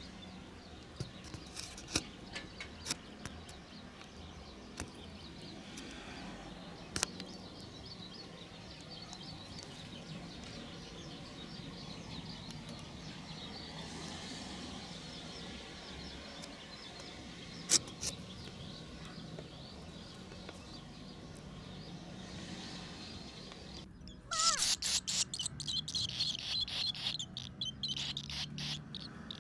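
Steady wind noise with scattered clicks and short high chirps from barn swallows. About three-quarters of the way in, a loud burst of rapid high chirping and twittering from the swallows runs for several seconds.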